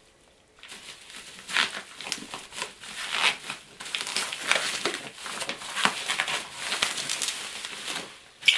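Bubble wrap and newspaper wrapping crinkling and rustling as a wrapped parcel is handled and tipped over, starting about a second in, with a sharper, louder crackle near the end.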